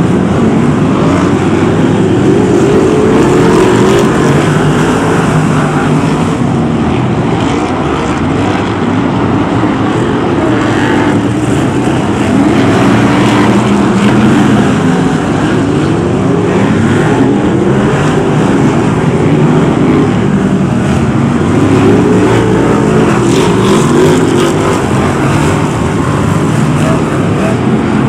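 Several BriSCA F1 stock cars' V8 engines racing together on a shale oval, a dense blend of engine notes rising and falling as the cars accelerate and lift off round the bends.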